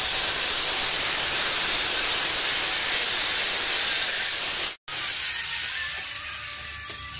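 Handheld angle grinder cutting into a stone stair tread: a steady, loud grinding hiss that cuts off suddenly a little under five seconds in. After that a weaker noise fades away while faint steady tones come in.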